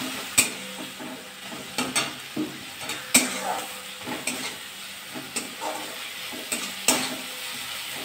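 Metal spatula scraping and knocking against a metal kadai while a thick onion-and-spice masala is stirred and sautéed, with a soft sizzle of frying underneath. The scrapes and knocks come irregularly, about once or twice a second.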